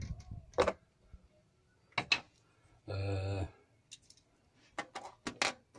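Small plastic switch being handled, giving a few sharp clicks spread through the moment, two of them close together, with a brief voiced sound about three seconds in.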